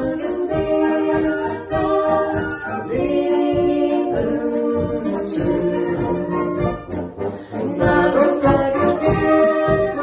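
Wind band playing a Bohemian polka, brass and woodwinds over a steady oom-pah beat from the tuba, with vocalists singing into microphones. The band drops back briefly about seven seconds in, then comes in fuller.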